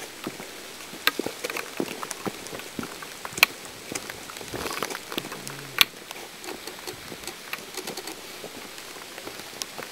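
Steady rain falling on the woods, a soft hiss with scattered, irregular sharp taps of drops striking close by.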